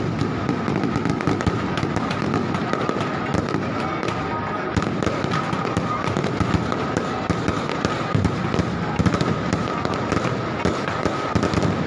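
Fireworks going off in a dense, continuous run of crackles and pops, with many sharp cracks a second. A steady high tone sounds underneath.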